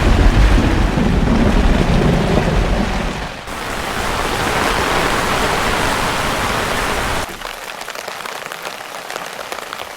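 Heavy rain falling, with a deep rumble under it for the first few seconds. About seven seconds in it cuts suddenly to a lighter patter of separate drops.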